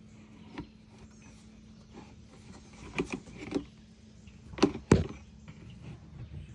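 Several short, sharp knocks and clicks: a cluster of three about three seconds in and a louder pair near the end, over a faint steady hum.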